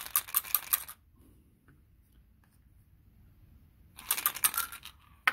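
Dice for an APBA baseball board game rattling and clattering: a fast run of sharp clicks for about the first second, a pause, then another burst of clicks and a single sharp click near the end as the roll lands.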